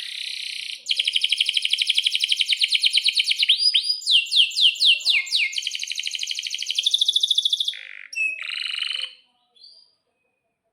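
Male domestic canary singing one long song phrase: fast trills, a run of about six falling notes in the middle, then another fast trill, stopping about nine seconds in.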